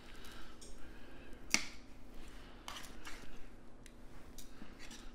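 Metal kitchen tongs clicking as fish fillets are lifted and laid on a griddle plate: one sharp click about a second and a half in, then a few fainter taps.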